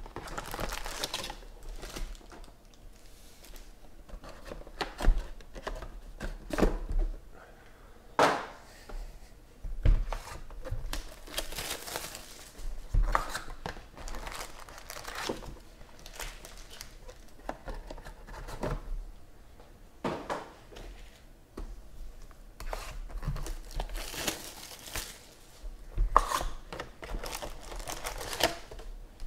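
Foil-wrapped Panini Prizm football card packs crinkling and rustling as they are handled and pulled out of their cardboard hobby box, with the box and its cardboard insert scraping and knocking. The crinkling comes in irregular bursts with occasional sharp knocks.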